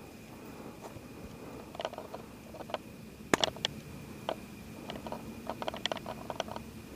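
Handling noise as a brown bullhead is laid against a measuring stick on a concrete ledge and held there: scattered clicks and taps, the loudest about a third of the way in and a quick cluster near the end, over a steady faint high tone.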